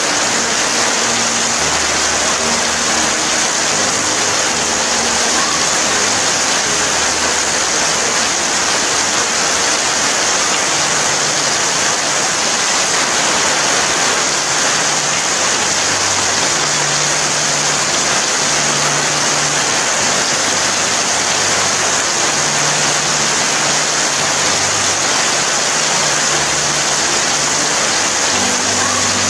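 Steady rain falling: an even, unbroken hiss with no thunder or separate drops standing out.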